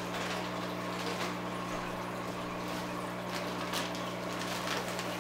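A steady low electric hum, with a few faint rustles as a hand moves the bagged fish and packing inside a cardboard box.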